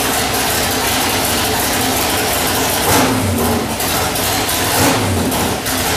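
427 cubic-inch Windsor-based small-block Ford V8 running on an engine dyno through open long-tube headers, swelling louder and deeper about three seconds in and again about five seconds in. It is being run under high vacuum as a smoke check, to verify there is no oil smoke after testing.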